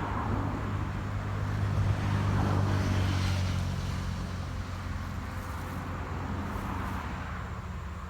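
An engine running at a steady pitch, growing louder about two to four seconds in and then slowly fading.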